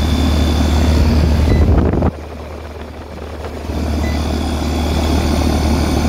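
Ruud AC condenser running, its compressor and condenser fan giving a steady low hum and rush of air. The level drops suddenly about two seconds in and builds back over the next second and a half.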